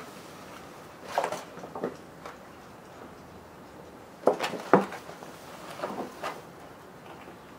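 Hand work on the bare steel inner frame of a van's sliding door: several short bursts of clicking, tapping and rustling, the loudest a little past the middle.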